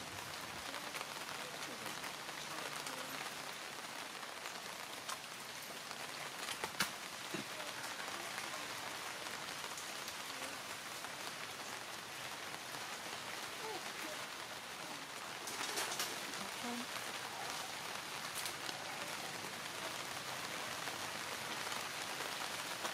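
Steady hiss of light rain falling on leaves and ground, with a few sharp ticks about 7 and 16 seconds in.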